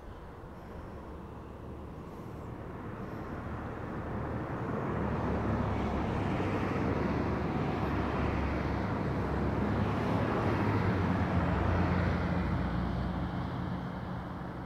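A passing motor vehicle: a low engine hum with road noise that swells over several seconds, holds through the middle and fades near the end.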